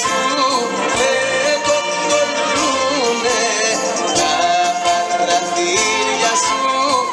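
Municipal wind band playing a piece, sustained wavering melody lines over a steady percussion beat.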